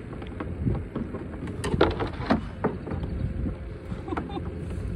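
Wind rumbling on the microphone, with a few sharp knocks and clatters of gear against a kayak about two seconds in.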